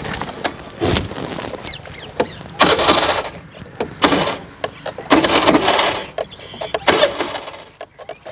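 A motor scooter's starter cranked in four short tries of a second or less each, the engine not catching. A low thump comes about a second in.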